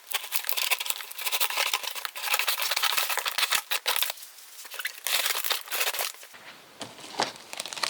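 Parcel packaging being torn and crinkled by hand while it is unwrapped: a dense run of crackling and rustling for about six seconds, then quieter handling with a few light knocks near the end.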